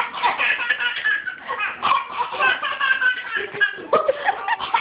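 Baby laughing hysterically in quick, repeated bursts.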